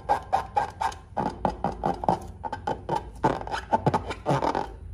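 Latex balloon squeaking as it is rubbed and squeezed in the hand: a quick, uneven run of short squeaks that stops shortly before the end.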